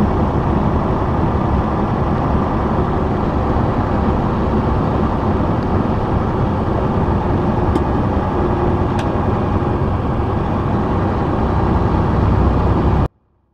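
Steady engine and road noise inside a semi truck's cab at highway speed, cutting off suddenly near the end.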